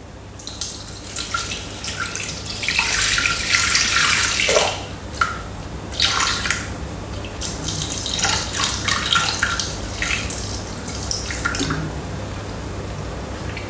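Water poured in a stream from a plastic squeeze bottle into a stainless-steel Thermomix mixing bowl, splashing and trickling, with a few brief pauses in the pour as it is measured out.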